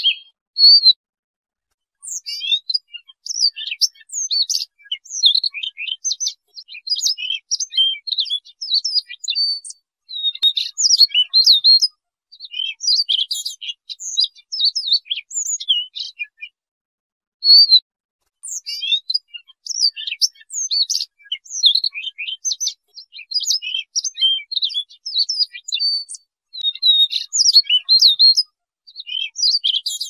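Siberian rubythroat singing: phrases of rapid, varied, warbling high notes, each a second or two long, with short pauses between them.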